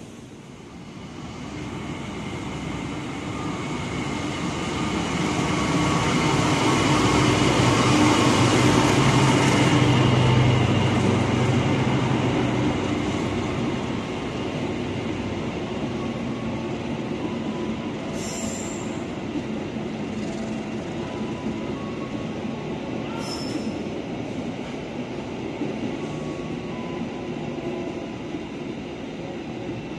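Diesel-hauled passenger train (a CC 206 diesel-electric locomotive with its coaches) running past the platform. The locomotive's engine grows to its loudest about ten seconds in, then the coaches roll by with steady wheel-on-rail noise and two brief high wheel squeals in the second half.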